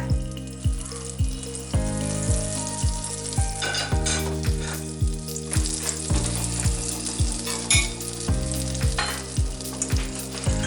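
Egg, vegetable and oats pancake batter sizzling in a hot pan of oil and butter, over background music with a steady beat.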